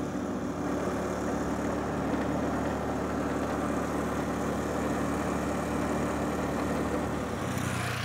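Small motor scooter's engine running steadily as it rides along, with a steady rushing noise over the engine hum.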